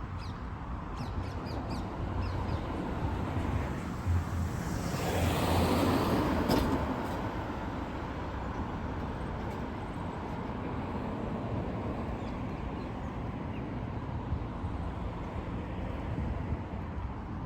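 City street traffic with a steady low rumble. A vehicle passes close by, swelling and fading about five to seven seconds in. Short bird calls sound in the first few seconds.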